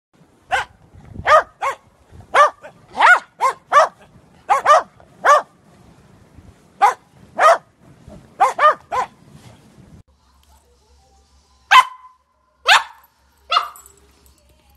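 Dogs barking: about fifteen sharp barks in quick runs, then, after a short pause, three louder single barks from a corgi puppy about a second apart.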